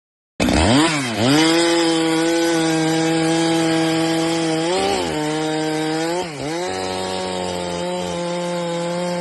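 Chainsaw running at high revs and cutting wood. It comes in abruptly about half a second in, and its pitch sags and recovers a few times as the chain bites.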